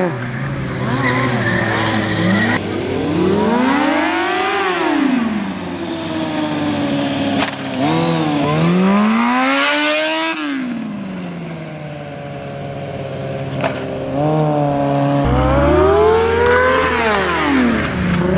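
Sport motorcycle engines revving up and back down in repeated sweeps, each climb and fall lasting about two to three seconds, with abrupt jumps in the sound where one recording cuts to another.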